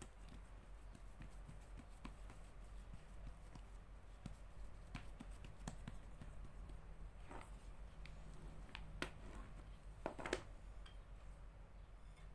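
Faint soft taps and clicks of hands pressing and patting yeasted dough flat on a plastic tray, with a few sharper clicks near the end, over a low steady hum.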